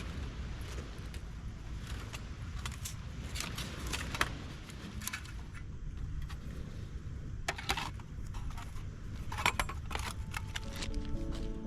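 Scattered metallic clinks and knocks of camp cooking gear being handled, over a steady low rumble. Music comes in near the end.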